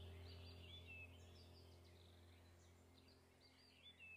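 Near silence with faint bird chirps: short high chirps come now and then throughout. A low hum fades away over the first second or two.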